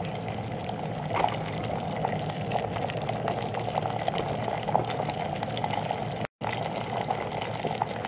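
Water at a rolling boil in a FEBOTE CISNO 1.7-litre glass electric kettle: steady bubbling with many small pops and crackles, breaking off for an instant about six seconds in.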